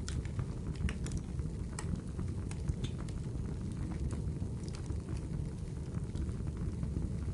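Wood fire crackling in a fireplace: scattered sharp pops and snaps over a steady low rumble of flame.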